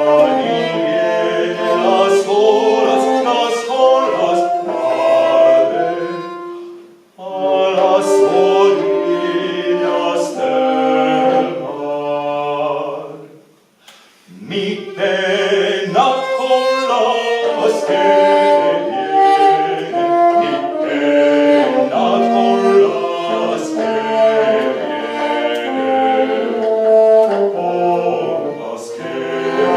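Live early-music ensemble performance: singing with instruments, several melodic lines at once. It breaks off briefly about seven seconds in and again around fourteen seconds.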